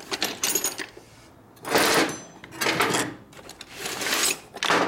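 Rummaging through a toolbox: metal hand tools clattering and clinking in several bursts.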